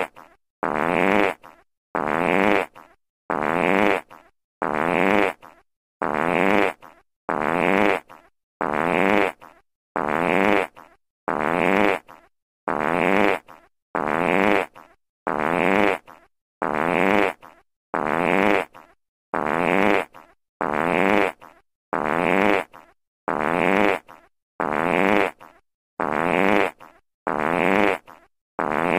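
A fart sound effect played on a loop: the same roughly one-second fart repeats over and over, with a short silence between repeats.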